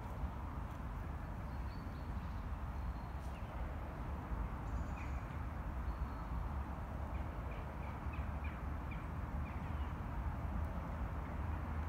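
Outdoor ambience with a steady low rumble. Over it a bird gives short high chirps, once about five seconds in and then a quick run of about seven, some three a second, a little past the middle.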